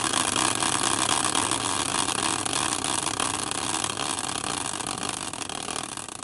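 Prize wheel spinning for a team draw. Its pointer clicks rapidly and steadily, the clicks fading and slowing as the wheel runs down.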